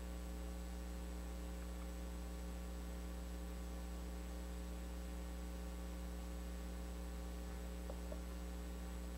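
Steady electrical mains hum with its ladder of overtones, unchanging throughout, and no other sound.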